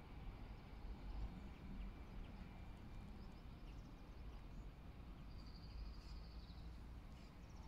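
Faint outdoor station ambience: a steady low rumble with small birds chirping now and then, and a thin high steady note lasting about a second just past five seconds in.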